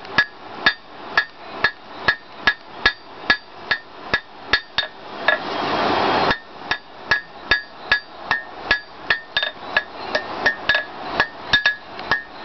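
Blacksmith's hammer striking hot mild steel on an anvil, about two to three blows a second, each blow ringing off the anvil, while the steel is drawn out into a leaf blank. About five seconds in, a rushing noise swells for about a second and cuts off suddenly.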